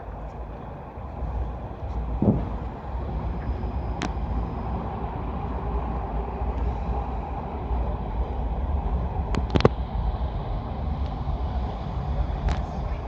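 Busy city street noise: a steady rumble of passing road traffic, with a few sharp clicks and knocks scattered through it.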